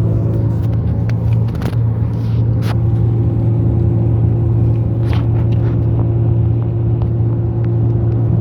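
Steady low engine and road rumble inside a car's cabin, with a constant hum and a few scattered light clicks.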